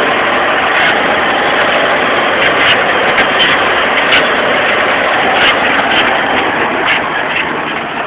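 John Deere tractor engine running hard under load, pulling a plough at about four miles an hour, with frequent sharp clicks and rattles over it. It eases off slightly about seven seconds in, when the clicking stops.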